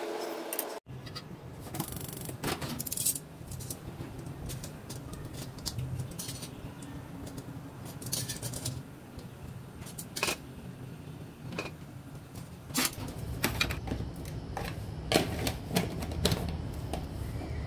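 Spring rolls frying in hot oil in a metal wok: sizzling and crackling, with scattered sharp clicks of metal tongs against the wok, over a steady low hum.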